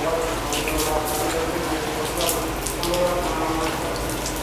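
Water running, with short hissing spurts of spray about half a second in and twice more near the middle.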